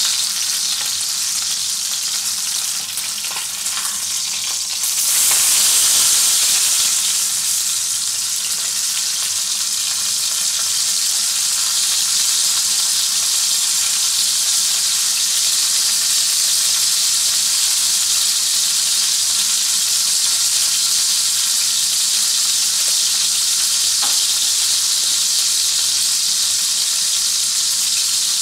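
Beef entrecote (ribeye) steak sizzling in hot oil in a stainless steel frying pan. The sizzle jumps louder about five seconds in as the steak is turned onto its unseared side, then settles into a steady hiss.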